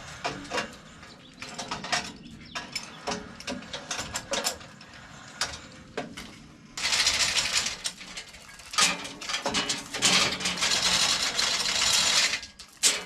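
Hand chain hoist being run down: the chain rattles through the hoist and the ratchet clicks. Scattered clicks come first, then two longer runs of continuous rattling from about seven seconds in.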